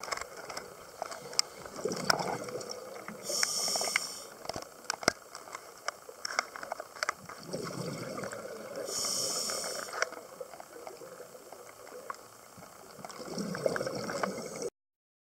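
Scuba diver breathing through a regulator underwater: a hissing inhale at intervals of about five to six seconds, with gurgling exhaled bubbles and scattered clicks and pops between.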